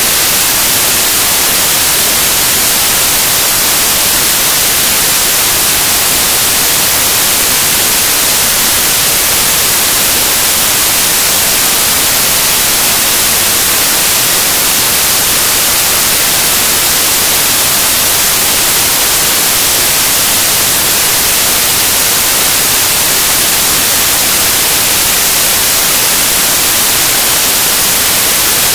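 Loud, steady static hiss, even and unchanging, with no other sound standing out: the audio track carries only noise.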